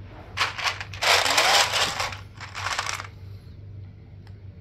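Small plastic gaming dice clattering and rattling together in a dice case, a dense rattle lasting about two and a half seconds, loudest in the middle, followed by a couple of single clicks near the end.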